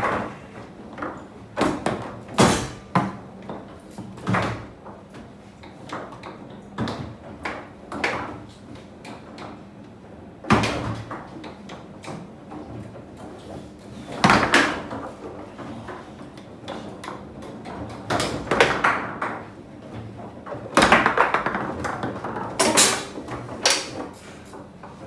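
Foosball table in play: irregular sharp clacks and knocks of the ball being struck by the rod figures and rods hitting the table, with several much louder bangs of hard shots.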